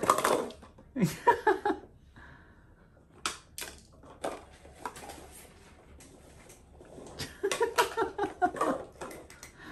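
Paper cups clattering and scraping on a wooden floor as cats push through them and knock them over. The rattling comes in two busy spells, during about the first two seconds and again from about seven seconds in, with a few single light knocks in between.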